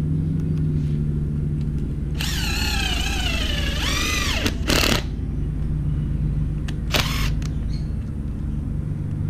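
Makita cordless impact driver running in bursts as it drives a coach bolt into hard ground. Its whine wavers in pitch over a longer run a couple of seconds in, then a short burst comes near seven seconds, over a steady low rumble.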